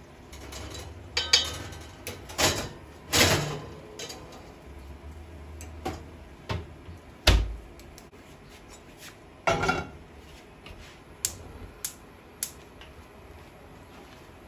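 Cookware clatter: metal tongs clinking and knocking against a pot and the oven rack as chicken pieces are turned, a string of separate sharp knocks with one heavier thump about seven seconds in.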